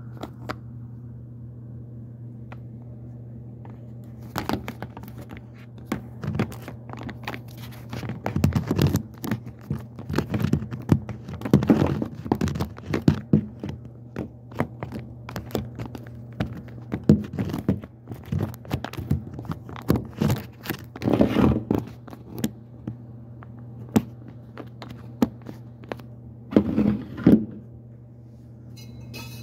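Irregular knocks, thunks and scrapes of handling and work inside the cabinet under a stainless steel kitchen sink, over a steady low hum. The knocking starts about four seconds in and stops shortly before the end.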